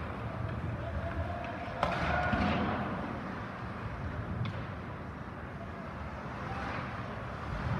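Ice hockey play echoing in a large, nearly empty arena: skates scraping on the ice under a steady hum, with a single sharp knock about two seconds in, the kind a puck or stick makes against the boards.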